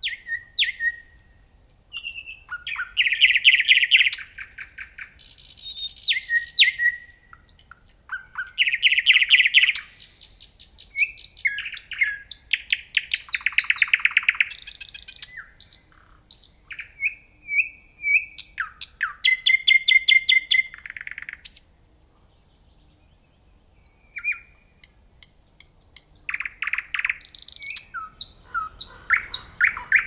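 Common nightingale singing a run of varied phrases: fast rapid-fire repeated notes and trills alternating with clear whistled notes. There is a short pause a little past the middle before it resumes.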